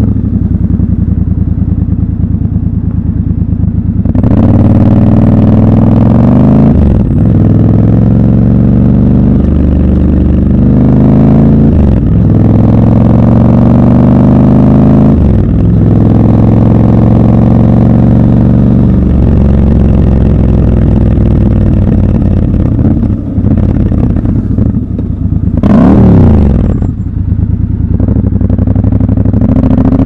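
Triumph Scrambler 1200 XC's parallel-twin engine accelerating through several gears, its pitch climbing and then dropping at each upshift before holding steady. Near the end the revs jump up and fall back in one quick blip.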